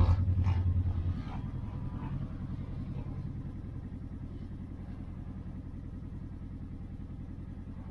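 Vehicle engine running, a steady low rumble heard from inside the cab, louder for about the first second and then settling lower.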